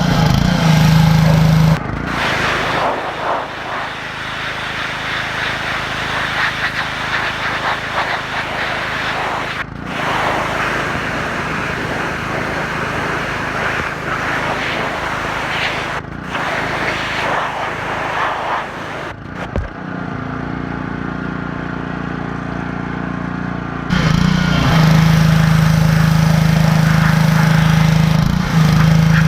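Pressure washer running with a steady engine-like hum, and in the middle stretch a dense hiss of the water jet spraying onto surfaces. The sound breaks off abruptly several times, as at edit cuts.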